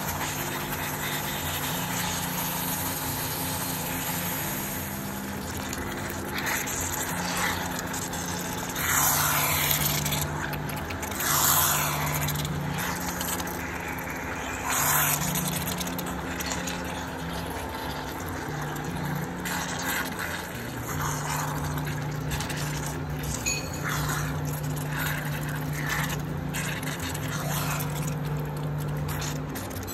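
Raw beef chunks sizzling in a pan of thick chilli paste as they go in and are stirred with a spatula, with louder surges of sizzling about 9, 11 and 15 seconds in.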